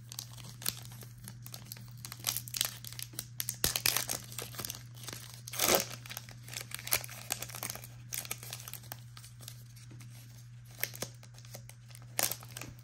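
Foil trading-card pack wrapper being torn open and crinkled by hand: irregular crackling and ripping, loudest a little before halfway through, over a steady low hum.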